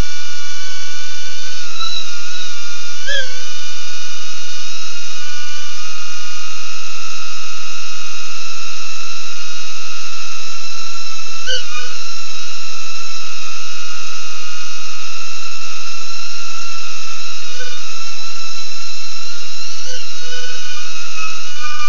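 Brushless motors and propellers of a BetaFPV Aquila16 FPV quadcopter whining loudly at a steady pitch in flight, with brief small wobbles in pitch about three seconds in, near the middle, and twice near the end.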